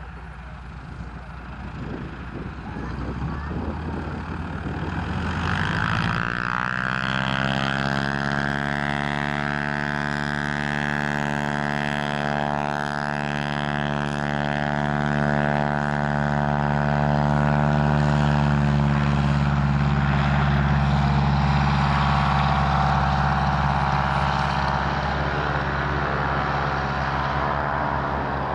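North American T-6 Texan's nine-cylinder Pratt & Whitney R-1340 radial engine and propeller opening up to takeoff power, the pitch sweeping up about six seconds in. It then holds a steady, loud drone through the takeoff roll and lift-off, growing fainter near the end.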